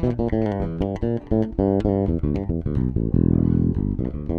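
Sandberg Masterpiece five-string electric bass recorded direct, played in passive mode on the rear pickup alone: a fast run of plucked notes with one longer held note about three seconds in.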